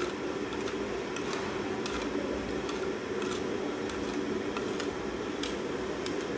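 A spoon stirring a liquid marinade of fish sauce, MSG and pepper in a ceramic bowl to dissolve the MSG, with light irregular clinks and scrapes against the bowl over a steady low hum.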